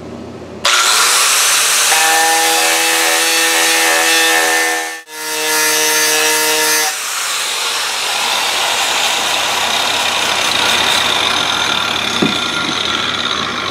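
A 4.5-inch angle grinder spinning a metal shrinking disc against the bare steel of a car's front valance, using friction to heat a low spot so the metal will shrink as it cools. It starts about a second in and runs steadily with a whine, breaks off sharply for an instant midway, and fades near the end.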